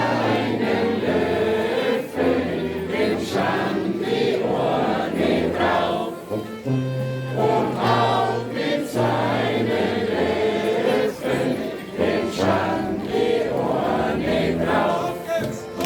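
A group of people singing together, choir-like, over held low accompanying notes that change about once a second.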